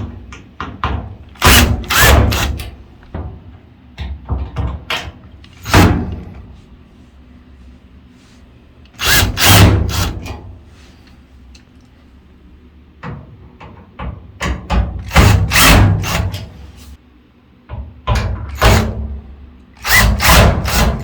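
Power drill-driver backing screws out of a dryer's panel in short runs, about six times, with clicks and knocks from handling the parts between runs.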